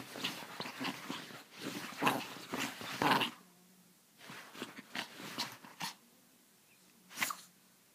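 A chihuahua playing rough on a bed: play growls and scuffling on the bedding for about three seconds, then a few short scattered sounds and one sharp louder one about seven seconds in.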